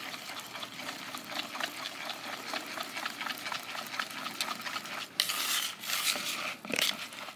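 Wire whisk beating a thick powdered-sugar glaze in a plastic mixing bowl: a quick, steady run of scraping and clicking as the wires strike the bowl. It grows louder and rougher for about a second, some five seconds in.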